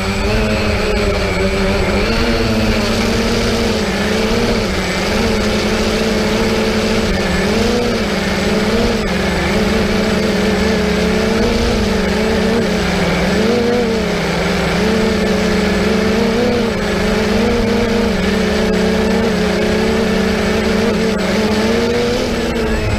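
Multirotor drone's motors and propellers humming steadily, the pitch wavering slightly up and down throughout.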